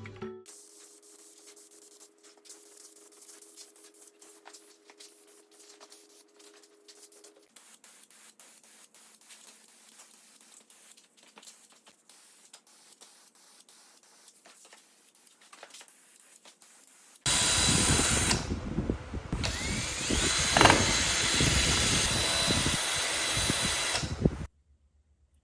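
A handheld power tool running steadily for about seven seconds, starting and cutting off abruptly. Before it come several seconds of faint scattered clicks and light handling sounds.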